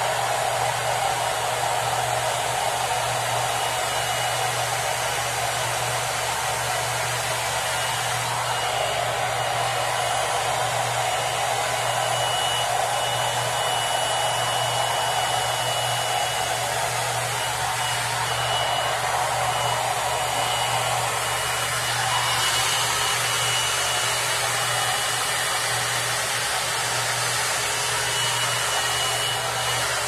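Hot air brush (round-brush hair dryer) blowing steadily as it is drawn through a section of damp hair, with a thin high whine that comes and goes.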